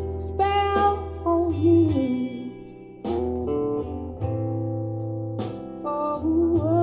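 A song with a sung melody over guitar, held bass notes and a steady beat, played through a pair of Aiwa Orb Bluetooth speakers.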